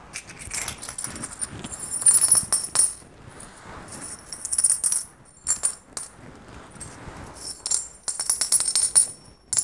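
A handful of gold-coloured metal coins clinking and jingling as they are poured from one palm into the other, in several short runs of bright chinks, the busiest about two seconds in and again near the end.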